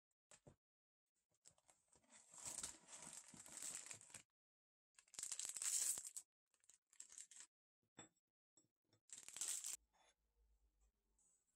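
Foil-lined plastic cookie wrappers being torn open and crinkled by hand, in three bouts of tearing and rustling, the first about two seconds long, the others about a second each.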